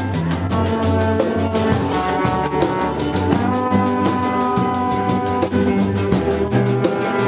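A small band playing an upbeat song: trombone holding long notes over strummed acoustic guitar and a quick, steady percussion beat.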